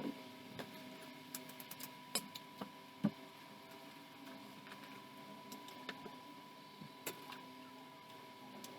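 Scattered light clicks and taps of small objects being handled, the loudest about three seconds in, over a faint steady high-pitched hum.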